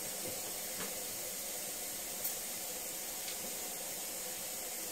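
Steady low hiss of background noise, with a few faint, soft ticks.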